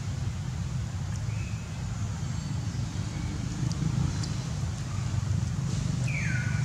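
Steady low rumble of background noise, with a short high squeak falling in pitch near the end.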